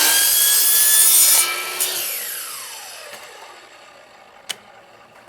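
Power saw with a wood blade cutting through vinyl rain gutter, loud until about a second and a half in, when the cut ends and the motor is switched off. The blade then spins down with a falling whine, and a single sharp click follows near the end.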